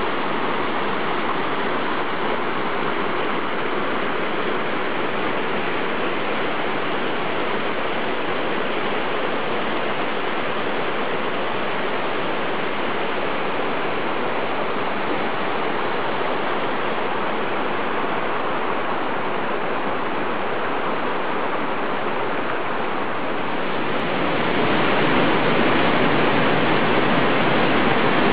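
Steady rush of a small karst stream cascading over limestone rocks and logs, growing louder about 24 seconds in.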